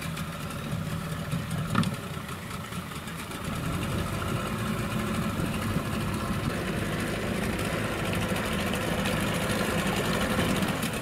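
A Marlin 9.9 PRO two-stroke outboard motor running as the inflatable boat moves off. There is a short knock about two seconds in, and the engine gets louder about four seconds in.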